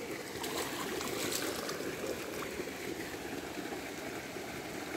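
Steady, soft water noise with a few faint small splashes as a hooked fish swirls and thrashes at the surface close to the bank.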